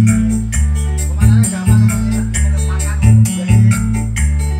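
Recorded music played loud through a miniature sound system of 15-inch subwoofers and 4-inch mid-high speakers: deep bass notes are the loudest part, over a steady beat with crisp shaker-like strokes on top.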